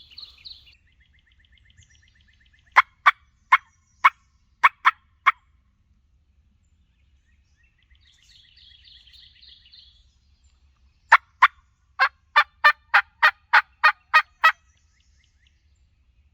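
A hunter's turkey call sounding hen yelps, used to locate a gobbler: a run of seven loud yelps about three seconds in, then after a pause a quicker run of about eleven. Faint songbird chirps come before and between the runs.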